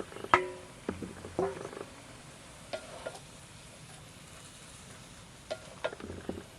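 Kitchenware clinking: sharp metal knocks, some ringing briefly, in small clusters near the start, in the middle and near the end.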